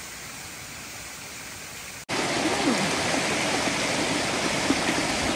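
Steady rushing noise of running water, which cuts in suddenly about two seconds in and replaces a quieter hiss.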